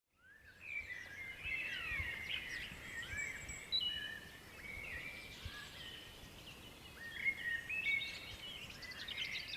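Many small birds chirping and twittering at once, with short overlapping calls and quick rising and falling notes. The sound fades in over the first second.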